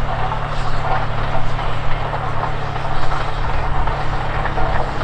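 A large engine idling steadily with a low, even hum.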